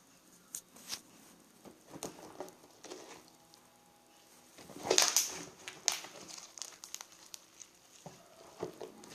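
Homemade slime being pressed and worked by hand for the bubble-pop test, giving scattered sticky crackles and small pops, with a louder pop about five seconds in.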